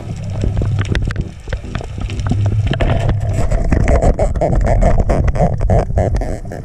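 Underwater sound picked up by a diving camera: a steady low rumble of water with many sharp clicks and knocks as a gloved hand and a lobster net work against the reef rock and stir up sand.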